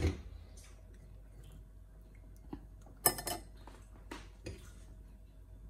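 A metal tea strainer and glass cups clinking and knocking on a stone countertop: a knock at the start, then scattered light clinks, busiest about three seconds in.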